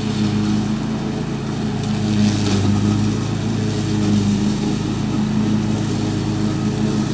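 Cub Cadet riding mower's engine running steadily at a constant speed while it mows through tall grass and weeds.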